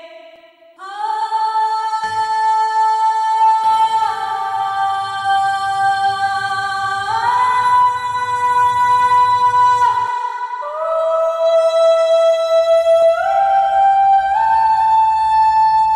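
Slow music: a single melody line of long held notes that slide from one pitch to the next, with a soft low accompaniment that drops out for a couple of seconds midway.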